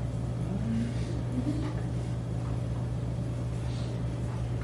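Steady low mechanical hum of the classroom's background noise, with a couple of faint brief murmurs about a second in.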